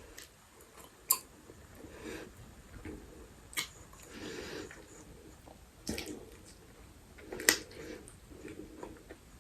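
Close-miked chewing of soft, sticky mochi ice cream: wet mouth and squishing sounds with four sharp lip smacks.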